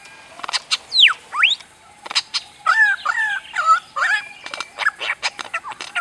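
Superb lyrebird singing mimicry that sounds just like laser sound effects. Sharp clicks and whistled sweeps, one falling steeply and one rising, come about a second in, followed by a run of quick falling two-note phrases mixed with more clicks.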